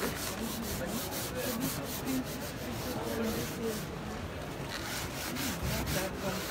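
Gritted abrasive scrub pad rubbed rapidly back and forth by hand over wet rimu tongue-and-groove boards, scrubbing off paint-stripper residue with a sprayed flusher rinse. It makes quick, rhythmic scratching strokes, about four a second, with a brief pause about four seconds in.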